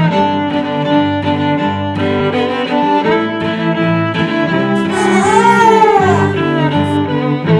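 Instrumental intro music on bowed strings, a fiddle over cello, with a note that bends up and back down about five seconds in.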